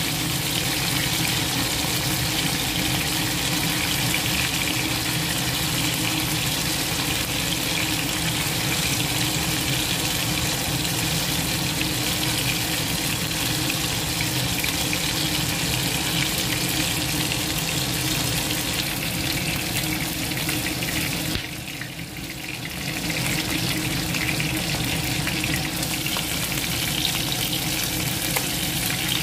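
Pieces of stingray sizzling as they pan-fry in hot oil, a steady hiss that dips briefly a little over two-thirds of the way through.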